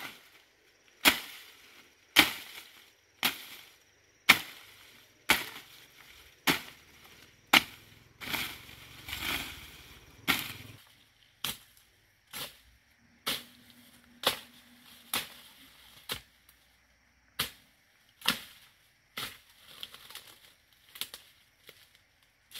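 Chopping through plant stems and brush with a hand blade: sharp cutting strokes about once a second. There is a stretch of leaf rustling around the ninth and tenth second.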